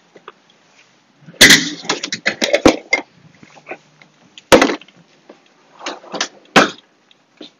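Kitchen clatter of utensils, containers and a drawer being handled at a counter: a busy run of knocks and clinks about a second and a half in, then a few single sharp knocks.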